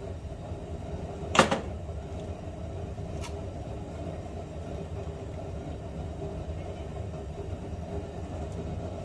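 A single sharp knock about one and a half seconds in, and a faint click near three seconds, over a steady low hum: parts and fasteners being handled during work on a 2007 Honda Odyssey's front blower motor housing.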